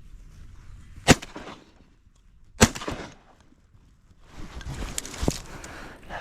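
Two shotgun shots about a second and a half apart, each with a short echoing tail. Near the end, rustling with a few small clicks.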